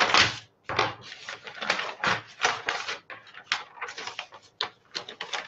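Large sheets of brown pattern paper rustling and crinkling as they are lifted and folded by hand, in a quick, irregular series of rustles.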